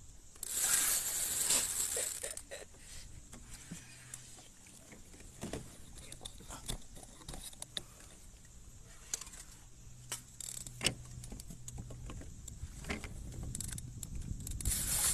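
Fishing reel clicking and rattling as it is cranked, with scattered sharp clicks. A loud rushing noise comes about half a second in and lasts a second or two, and again near the end.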